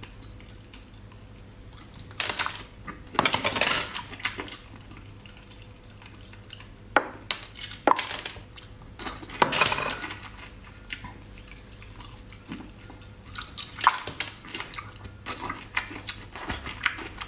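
Eating noises: irregular clicks and clatters of utensils against dishes, mixed with a few longer wet, noisy bursts.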